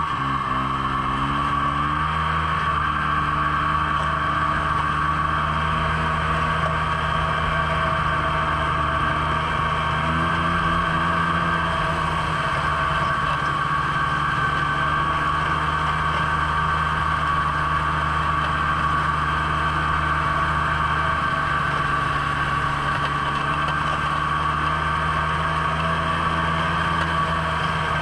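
Snowmobile engine running under way, heard from on board, its pitch rising over the first two seconds as it picks up speed, then holding steady.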